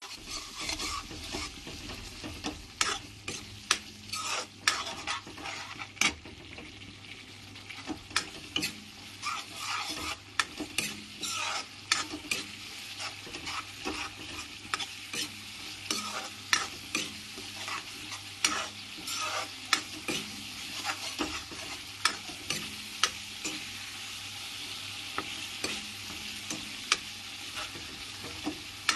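Spice paste sizzling in hot oil in a metal wok while a metal spatula stirs it, with a steady hiss and frequent irregular clicks and scrapes of the spatula against the pan.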